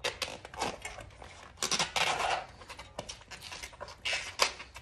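Hands working the wing of a Tannus Armor foam tire liner into a fat-bike tire and rim: irregular scraping and rubbing bursts of rubber and foam against the rim, strongest about a second and a half in and again near the end.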